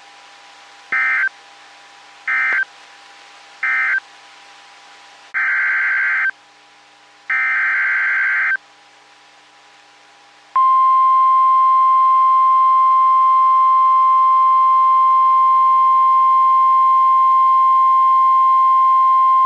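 NOAA Weather Radio SAME digital data bursts: three short bursts, the end-of-message code, then two longer header bursts announcing a new alert. About ten and a half seconds in, the steady 1050 Hz warning alarm tone starts and holds for about nine seconds.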